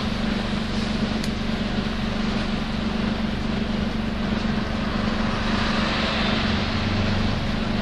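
Nissan Diesel UA city bus running, heard from inside the cabin: a steady running noise with a strong, even low drone throughout. The bus is one that runs with an abnormal noise, of the kind heard on these buses as their vehicle inspection comes due.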